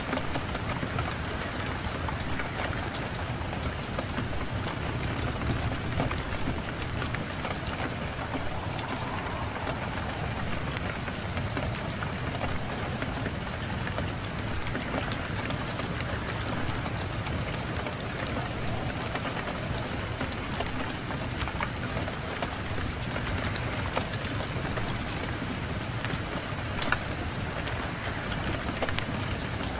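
Fireplace fire crackling with frequent sharp pops, over a steady low rumble of wind.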